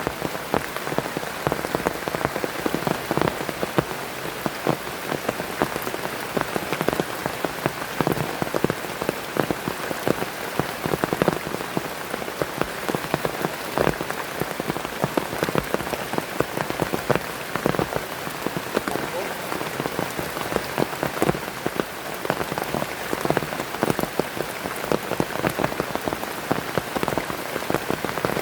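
Heavy rain falling steadily, with a dense patter of individual drops striking a surface close by.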